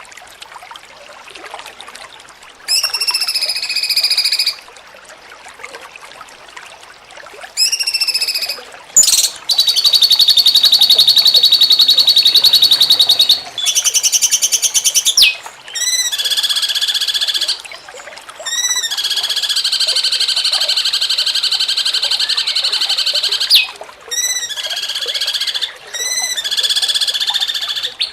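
Cucak cungkok song in the 'jengking munting' style: phrases of rapid, rattling repeated notes, loud and high-pitched. Two short phrases come first, then longer trills of several seconds each, with shorter bursts near the end.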